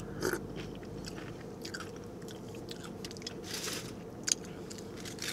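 A person quietly chewing a mouthful of carne asada burrito, with small wet mouth clicks. There is a brief rustle about three and a half seconds in and a sharp tick just after.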